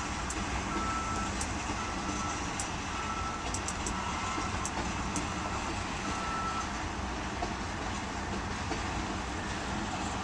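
Freight train of loaded ethanol tank cars rolling past at steady speed, its wheels making an even rumble on the rails with a few faint high clicks. Over it an electronic beep repeats about once a second and stops about six and a half seconds in.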